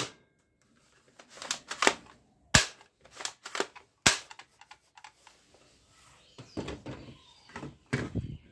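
Plastic toy guns being handled and worked: a series of sharp plastic clicks and snaps, three of them loudest (at the start, about two and a half seconds in, and about four seconds in), with smaller clicks and rattling plastic between them.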